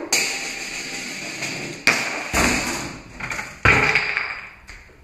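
Parts of a homemade chain-reaction (Rube Goldberg) machine going off one after another: a run of sudden knocks and clattering, each fading out. The loudest knocks come about two seconds in and again near four seconds.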